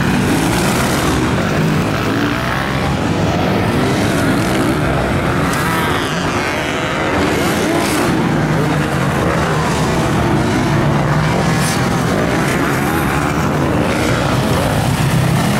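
Motocross dirt bike engines revving hard, their pitch rising and falling as the riders accelerate and shift through the turns.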